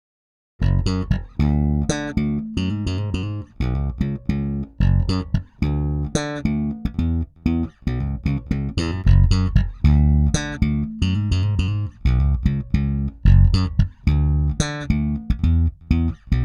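Electric bass guitar playing a riff of short, separated plucked notes, heard through a Pultec EQP-1A-style equalizer set for the "Pultec trick" low-end boost. It starts after a brief silence about half a second in.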